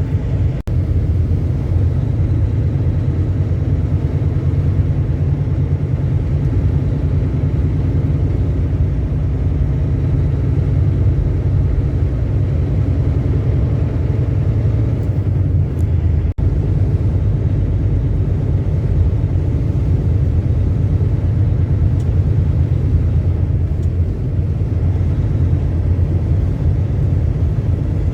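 Semi truck driving, heard from inside the cab: a steady, loud low rumble of engine and road noise. The sound drops out for an instant about sixteen seconds in.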